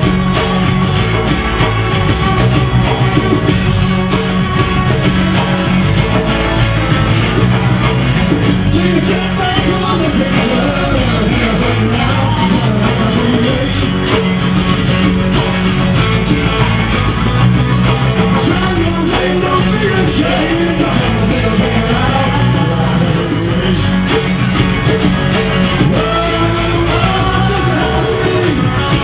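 Live rock band playing a song: guitar and bass under a singing voice that comes in and out.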